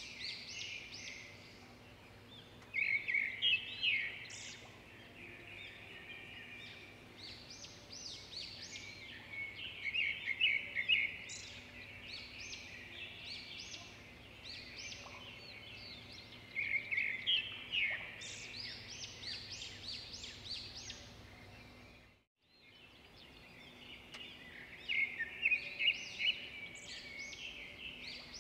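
Birdsong: flurries of high chirping and twittering that swell about every seven seconds, over a faint steady hum. The sound drops out completely for a moment about 22 seconds in.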